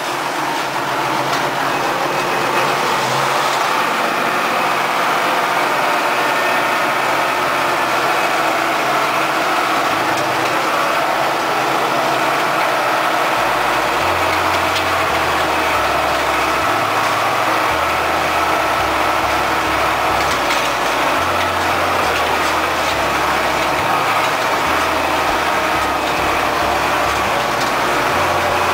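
A farm tractor's diesel engine runs steadily as the tractor drives along, heard from the driver's seat.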